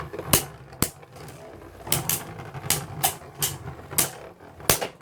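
Beyblade spinning tops, the 3D-printed Galahad Beyond and World Spriggan, clashing in a plastic stadium: about nine sharp clacks at uneven intervals over a faint steady whir of spinning.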